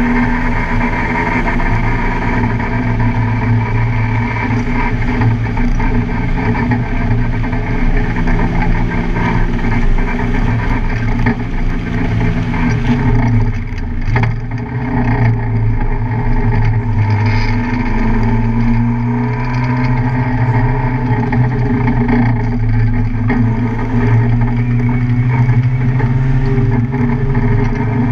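Car engine running hard at speed on a race track. The engine note falls sharply about 13 seconds in, then rises again and holds steady.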